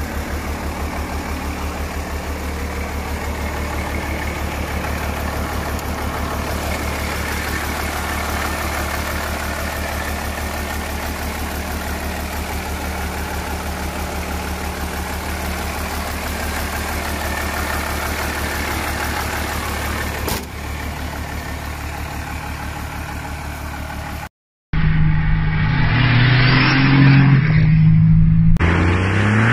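Compound-turbocharged 12-valve Cummins inline-six diesel in a 1994 Dodge Ram 2500, with a 4-inch exhaust, idling steadily with a fast, even pulse. Near the end the sound cuts to a much louder stretch of the truck accelerating hard, its engine note stepping up and down.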